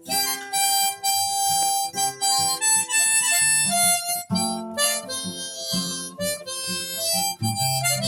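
Harmonica playing a blues melody in held and bending notes over acoustic guitar picking, an instrumental break in a folk country blues song.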